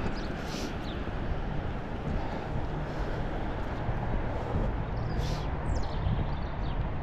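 Steady traffic noise of a town street, with a low engine hum.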